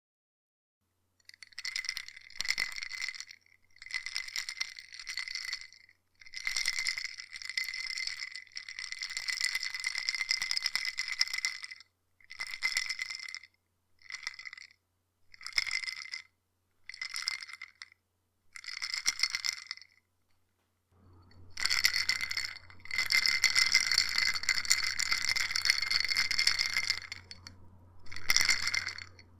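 Ice cubes rattling inside a cup as it is shaken, in a string of short bursts of a second or two with brief pauses between. Near the end comes one longer stretch of continuous shaking, then a last short shake.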